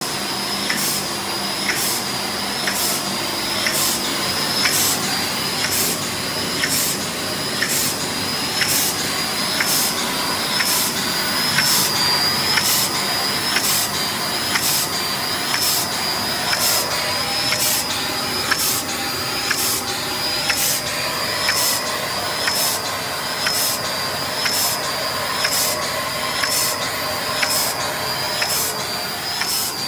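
Automatic capsule filling machine running: a steady mechanical hiss with a regular beat of its working cycle about once a second.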